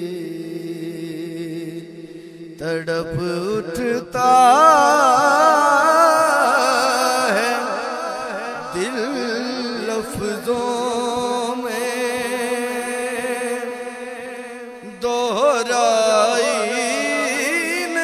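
Male reciter chanting an Urdu devotional poem in remembrance of Hussain (Zikr-e-Hussain) in long, wavering, ornamented phrases over steady held tones. The voice enters about three seconds in, is loudest soon after, and starts a fresh phrase near the end.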